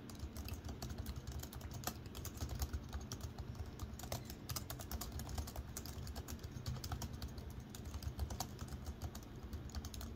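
Fast typing on a 2008 13-inch MacBook's keyboard: many quick key clicks a second, without a break.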